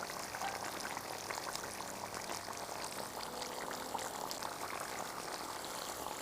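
Lamb-rib and vegetable stew simmering in a cauldron over a campfire: a steady bubbling hiss dotted with many small pops.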